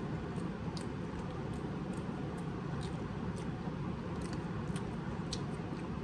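A person chewing a chicken sandwich: irregular faint wet mouth clicks, about two a second, over a steady low background rumble.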